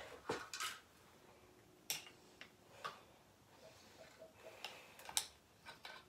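Faint, scattered metal clicks and ticks, about half a dozen, of a hand tool working on a Shimano Deore XT rear derailleur.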